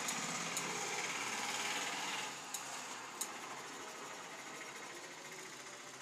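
Large scissors cutting through mosquito netting: a rapid rasping crunch for about two seconds, then quieter, with a few sharp clicks.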